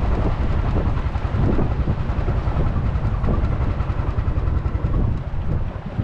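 Small tour boat's engine running steadily as the boat motors across the lake, a heavy rumble mixed with wind buffeting the microphone. It eases off a little near the end.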